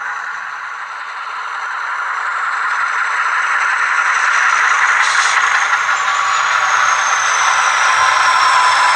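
Atlas model GE U36C locomotive running with a loud rattling, scraping mechanical noise from its drive, growing louder, with a thin whine that slowly falls in pitch in the second half.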